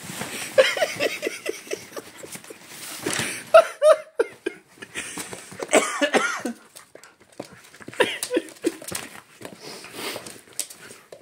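Two dogs, a chonzer and a terrier puppy, play-wrestling: quick rhythmic play growls, about four or five a second, broken by a few higher yelping cries around four, six and eight seconds in, over the rustle of a fabric pet tent being pushed about.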